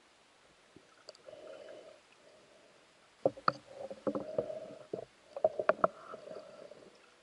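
Muffled underwater knocks, clicks and scraping from a spearfisher's speargun and body moving among submerged reed stems. A short patch of scraping comes about a second in; most of the knocks and clicks fall in the second half.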